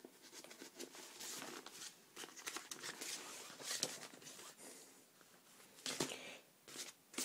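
Rustling and handling noise with scattered clicks, the sharpest about six seconds in.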